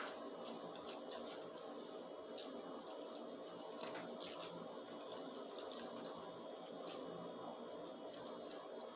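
Faint wet mouth sounds of a person eating spaghetti: slurping noodles and chewing, with a few small smacks and clicks.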